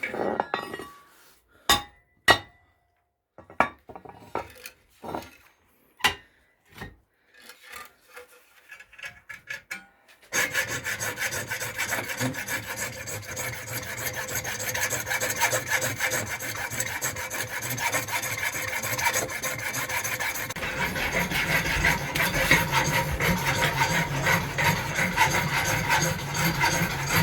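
Scattered knocks and handling sounds, then about ten seconds in a saw starts cutting through the fireplace's metal damper, sawing without a break and getting louder and deeper about twenty seconds in.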